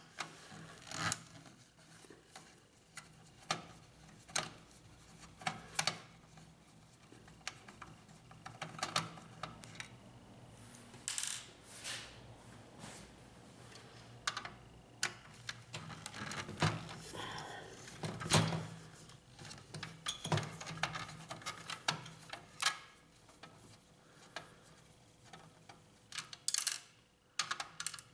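Irregular small clicks, taps and light scraping of a screwdriver, screws and hands working the plastic and metal parts of a laser printer, as the screws of its laser scanner unit are taken out.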